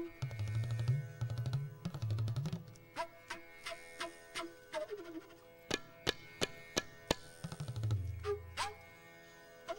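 Tabla playing a passage of sharp strokes on the right-hand drum, with the left-hand bass drum sliding up in pitch near the start and again near the end. A tanpura drone sounds steadily beneath.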